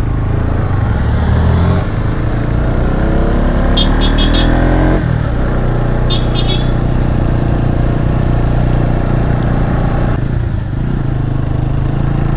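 Motorcycle engine running under load, revving up in a rising whine for about three seconds, then dropping abruptly about five seconds in and running steadily; the bike is struggling to pull. Two brief clusters of high chirps sound over it.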